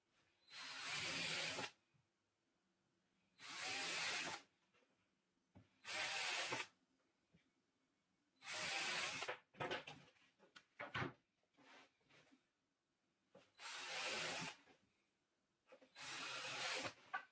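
Cordless drill run into pine boards in six short bursts of about a second each, with small knocks of handling between them.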